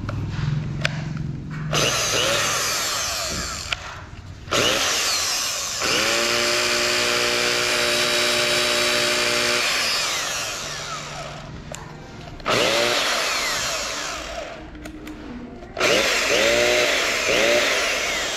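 Hilti TE 7-C rotary hammer run free in the hand for a test after repair and cleaning: four trigger pulls, each motor run whining up to speed and winding down on release, the longest about six seconds.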